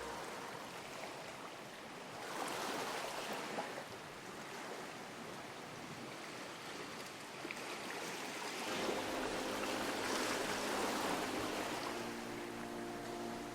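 Sea water washing and breaking against a harbour pier, swelling twice. About two-thirds of the way in, a low steady hum joins it.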